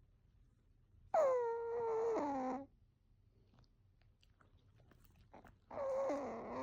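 Sleeping chihuahua snoring with a high, whistling tone: one long snore of about a second and a half that drops in pitch near its end, a few faint clicks, then the next snore starting near the end.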